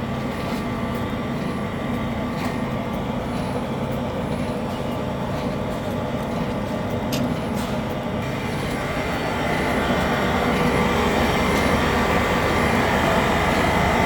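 Machinery running steadily, a continuous hum with several steady tones. About 8 seconds in, a louder hiss joins and the sound grows a little louder.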